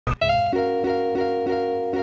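Music played on a plucked string instrument, notes re-struck in an even pulse of about three a second over a held chord, starting with a sharp opening hit.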